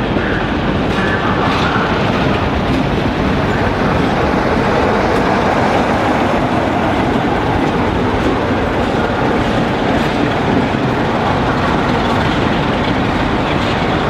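Diesel-hauled train with Class 37 and Class 47 locomotives running through the station: a steady, loud mix of diesel engine noise and wheels running on the rails.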